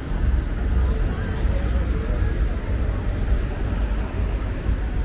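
City street ambience: a steady low rumble of traffic with faint voices of passersby.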